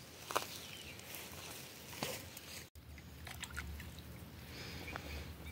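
Quiet pond-edge ambience: faint small water sounds and a few soft clicks as mute swans swim close to the bank, with a brief dropout near the middle.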